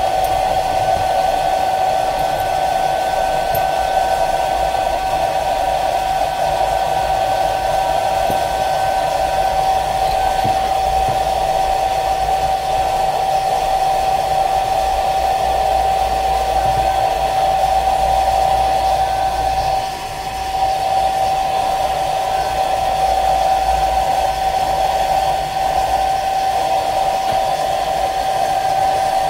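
Hot-air blower running steadily, a high motor whine over rushing air, blowing hot air to warm the phone before the back cover goes back on. The whine briefly drops about twenty seconds in.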